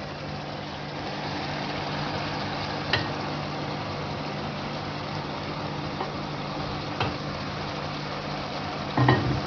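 Wooden spatula stirring fried okra into a tomato-onion masala in a pan, with a few light knocks against the pan about three, six and seven seconds in, over a steady mechanical hum.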